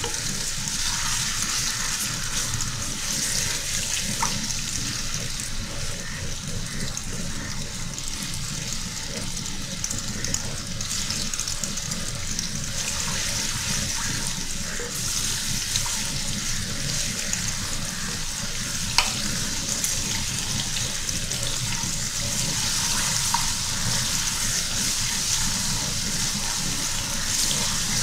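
Garlic paste sizzling in hot oil in an aluminium pot, a steady hiss, as a wooden spoon stirs it, with a few light knocks of the spoon against the pot.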